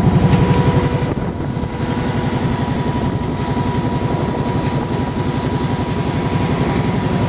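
ATV engine running steadily under way, its firing pulses loud and even, easing slightly about a second in.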